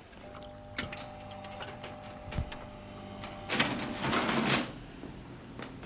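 A cash register's receipt printer buzzing steadily as it prints the bill, with a sharp click about a second in. About halfway through, a louder scraping rustle follows, and then small clicks near the end.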